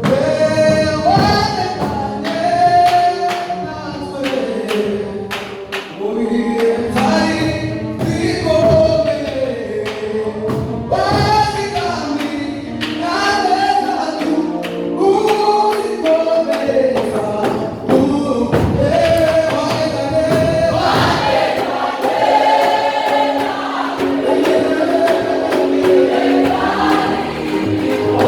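A choir singing a gospel worship song with percussion accompaniment.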